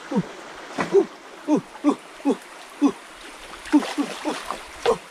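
About a dozen irregular splashing plunks in shallow stream water, each short with a quick drop in pitch, as a hand and a stick are jabbed into the water. The stream runs steadily underneath.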